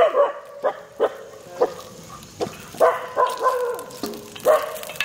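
A dog barking repeatedly, about nine short, sharp barks spaced irregularly.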